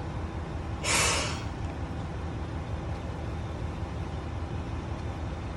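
Isumi Railway diesel railcar with a steady low rumble, and a short burst of air hiss about a second in.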